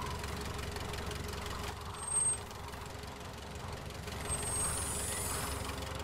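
Cartoon backhoe loader's engine idling with a steady low rumble; a soft high hiss swells up about four seconds in.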